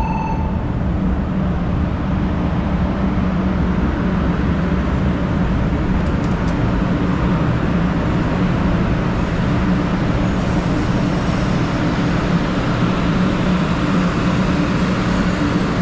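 500 series Shinkansen train running in alongside the platform: a steady rumble of wheels and running gear with a low hum underneath.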